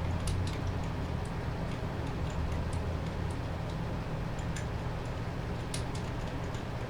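Faint, irregular light clicks, a few each second, over a steady low hum.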